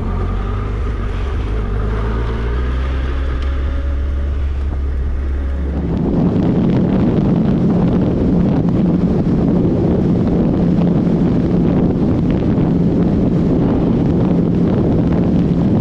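Stock Suzuki Hayabusa inline-four engine running with its pitch rising slightly. About six seconds in, heavy wind noise on the microphone takes over at speed, with a steady engine drone beneath it.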